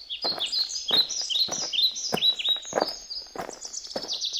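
Songbirds chirping in quick runs of falling notes, over footsteps on a grass path at an even walking pace, about one step every half second or so.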